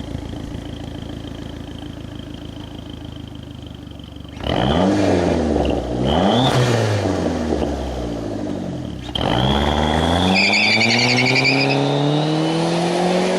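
PT Cruiser GT's turbocharged four-cylinder engine accelerating hard: the engine note climbs and falls, drops about nine seconds in, then climbs steadily again. Over the later part a high whistle from an add-on novelty turbo whistle rises with the revs and warbles briefly.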